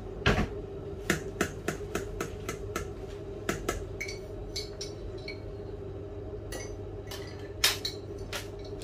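Metal spoon stirring oil in a stainless steel saucepan, clinking and knocking against the pot's sides over and over, over a steady low hum.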